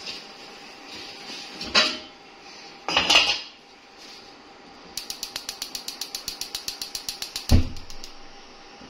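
An aluminium cooking pot's lid is lifted off and set down with a couple of metal knocks and scrapes. Then a gas hob's electric igniter clicks rapidly, about seven clicks a second for a couple of seconds, until the burner catches with a low whump.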